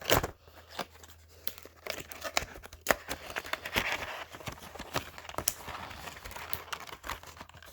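Retail packaging of a pair of wireless earphones being torn open and handled by hand: many sharp clicks and snaps mixed with crinkling, tearing rustles.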